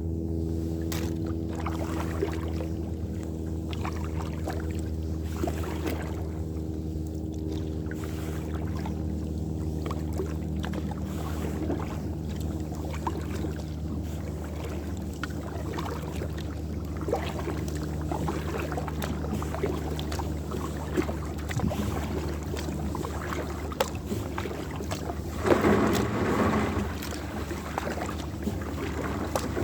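Kayak on open water, with small splashes and drips against the hull over a steady low hum. A louder splash comes near the end.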